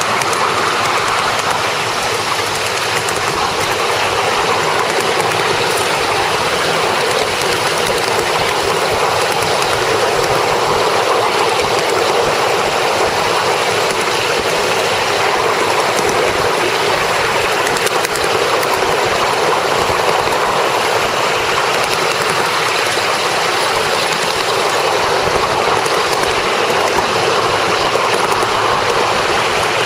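Steady rushing noise of a 7¼-inch gauge miniature railway train with a Black 5 locomotive on the move, even and unbroken throughout.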